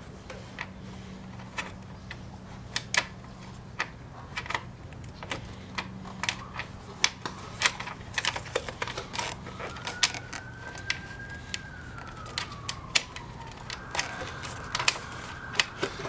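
Irregular light clicks and taps of small metal hardware and hand tools being handled, as a nut and washers are worked onto a motorcycle turn-signal mounting bolt. From about ten seconds in, a faint tone rises and falls, then holds steady near the end.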